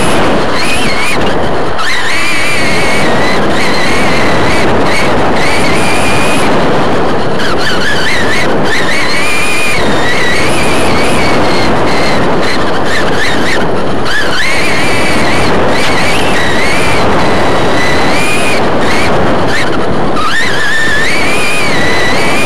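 Onboard sound of a modified-class electric RC short course truck racing on dirt: a loud whine from the motor and drivetrain rising and falling again and again as it speeds up and slows for the turns, over a steady rush of wind and tyre noise.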